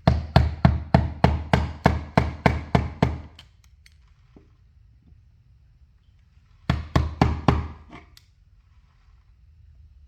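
Hammer striking a chisel, chipping into the wall around a recessed outlet box: a quick run of about ten sharp blows, three a second, then a pause and about five more near the middle.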